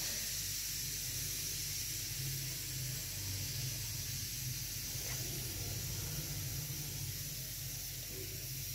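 Steady background hiss with a low, wavering hum underneath. No distinct event stands out.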